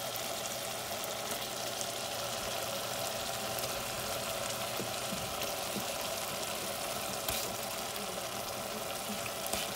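Tomato-and-onion curry base boiling hard in a steel pot: a steady bubbling with small scattered pops.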